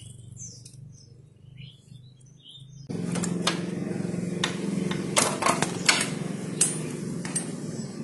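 Yamaha Jupiter Z's single-cylinder four-stroke engine running. It becomes much louder about three seconds in, with irregular sharp clicks over the steady hum. The mechanic takes the rough noise for the clutch housing, whose damper rubbers are worn out or broken.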